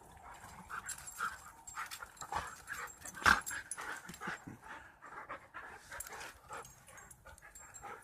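Dog panting hard during play, among irregular short rustles, with one sharp louder knock a little over three seconds in.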